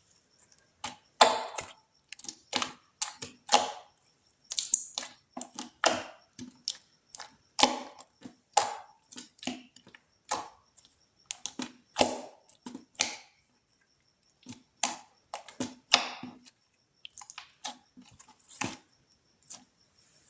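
Slime being squeezed and poked, making an irregular run of sharp, wet clicks and pops, several a second with short pauses between.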